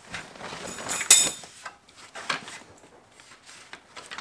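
Plastic packaging rustling and crinkling as it is pulled off a plastic truck grille, with the sharpest crinkle about a second in.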